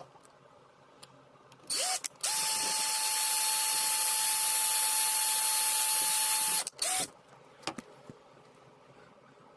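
Electric drill drilling into a metal tab inside a door: a short blip of the trigger about two seconds in, then about four and a half seconds of steady running at one pitch that cuts off suddenly, and one more short blip after it. Small clicks and handling knocks around it.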